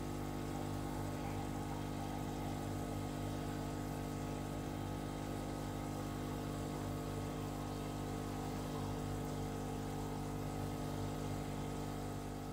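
RedStarfish SQ-90 mini protein skimmer running: its small pump gives a steady, even hum with an airy hiss over it.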